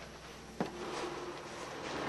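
A plastic hamster ball with a hamster inside, handled and moving on a wooden table: one sharp click about half a second in, then a faint low rustle.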